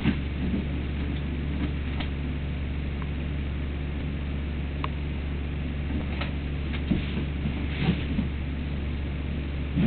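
Doberman puppy scratching and digging at its fabric dog bed with its claws: irregular scratchy rustles and soft knocks, more of them near the end, over a steady low hum.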